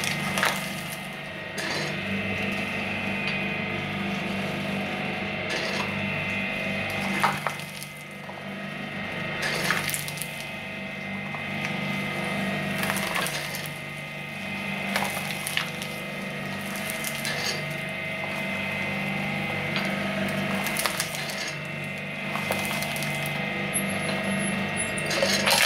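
Twin-shaft shredder running with a steady hum from its motor and gearbox, its steel cutter blades crunching cigarette packs and cigarettes, with a sharp crack every few seconds. Right at the end, a burst of louder metallic clattering as an aluminium drink can goes into the blades.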